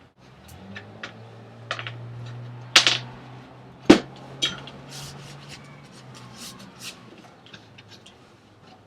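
Sharp clicks and knocks from wooden slats and spacers being handled and set in place, two louder knocks about three and four seconds in, over a low steady hum that stops about six seconds in.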